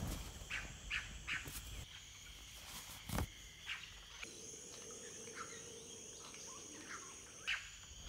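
Tropical rainforest ambience: a steady high insect drone, joined by another buzzing tone about four seconds in, with short bird chirps now and then and a sharp click about three seconds in.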